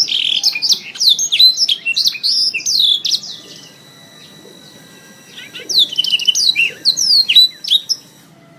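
Domestic canary singing fast runs of chirps and sweeping trills, in two bursts of about three seconds each with a short pause between.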